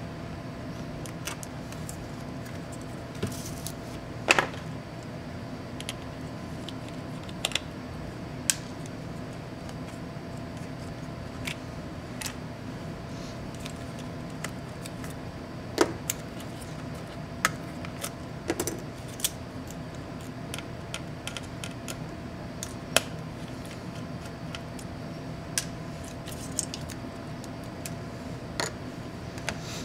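Irregular small clicks and taps of a screwdriver and fingers on the plastic and metal parts inside an MSI GE76 Raider laptop as it is taken apart, over a steady background hum. The sharpest clicks come about four seconds in and around the middle.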